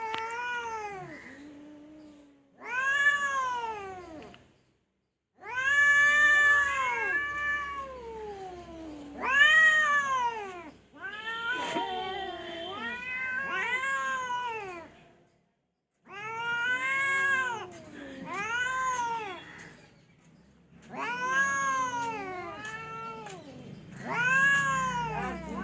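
Domestic cat meowing over and over: about a dozen long calls, each rising and then falling in pitch, with short pauses between them.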